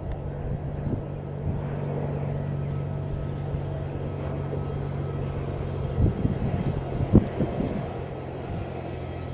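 Single-engine Cessna light aircraft's piston engine and propeller droning steadily on landing approach, the pitch dropping slightly about halfway through. A few low thumps about six to seven seconds in.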